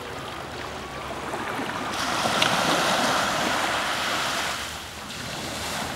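Small waves of the Baltic Sea breaking and washing up on a sandy beach. The surf swells to its loudest about two seconds in and eases off again about five seconds in.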